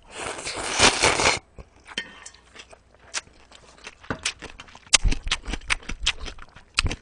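A long slurp of cold arrowroot naengmyeon noodles lasting about a second and a half, followed by closed-mouth chewing with many small wet mouth clicks that grow busier in the second half.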